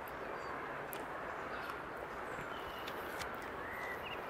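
Quiet woodland ambience: a steady hiss with a few faint, short bird chirps and a couple of soft clicks.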